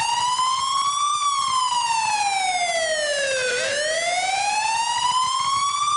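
Fire engine's siren wailing in a slow rise and fall: it peaks about a second in, sinks to its lowest about three and a half seconds in, then climbs again.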